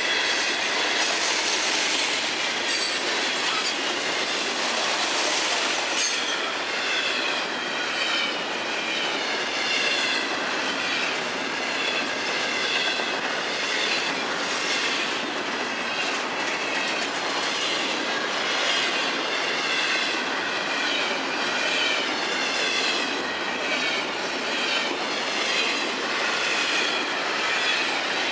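Freight train cars rolling past: the steady noise of steel wheels on rail, with a wavering high-pitched wheel squeal over it. A few sharp clicks come from the rail joints in the first few seconds.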